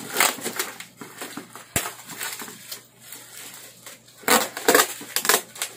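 Plastic packaging crinkling and crackling as a plastic-wrapped package is unwrapped by hand, with a denser, louder run of crackles starting about four seconds in.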